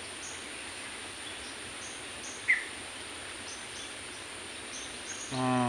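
Outdoor ambience: a steady hiss with scattered short high chirps, and one louder brief rising chirp about halfway through. A man's voice begins right at the end.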